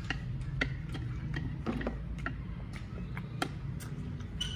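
A child eating noodles with a fork from a plate: irregular small clicks, two or three a second, over a low steady hum.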